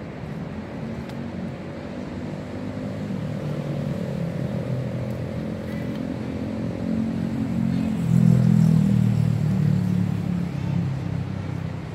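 A motor engine running with a steady drone that grows louder, is loudest about eight seconds in, then fades, like a vehicle passing.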